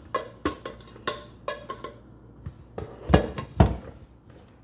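Cookware clattering as drained pasta noodles are poured into a bowl: a run of clinks and knocks, some with a short ring, and two louder knocks a little past three seconds in.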